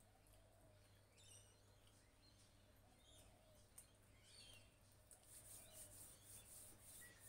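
Faint birds chirping outdoors: a few short separate calls, then a thin high rhythmic chirring that grows a little louder over the last two seconds.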